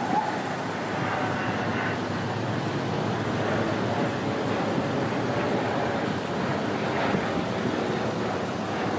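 Steady roar of street traffic, with wind rushing over the microphone.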